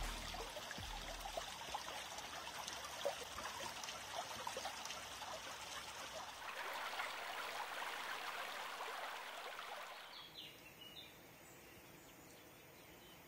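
Steady rush of water flowing along a levada, an open irrigation channel, which fades down about ten seconds in.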